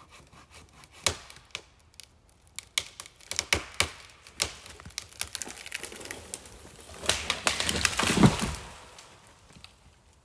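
Dry dead pine wood cracking and splintering under force: a run of sharp snaps, building into a longer splintering crack that ends in a heavy thud about eight seconds in.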